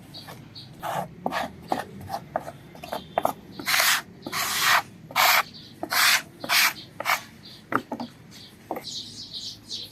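A hand tool rubbed and scraped across wood in repeated strokes, about one and a half a second, the strokes loudest in the middle.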